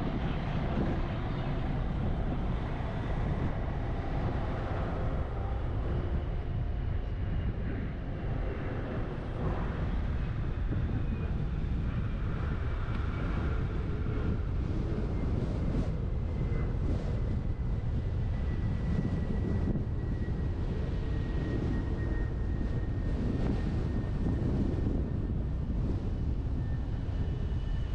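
Steady rumble of a truck driving, with tyre and road noise and wind buffeting a roof-mounted camera's microphone. A faint whine drifts slowly down in pitch across it.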